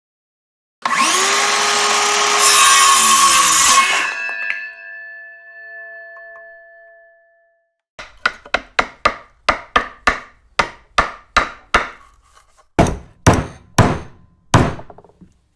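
A power saw cuts through timber for about three seconds and spins down, leaving a fading metallic ring. Then a hammer drives a nail into wood: quick light taps about three a second, followed by four heavier blows.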